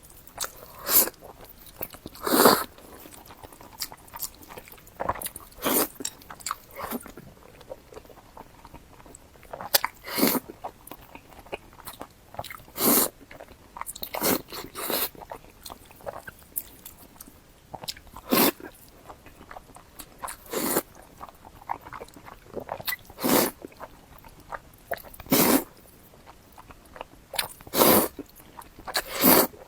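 Close-miked eating of hot dry noodles dressed in sesame paste: wet chewing and mouth sounds, with a louder short burst every two or three seconds.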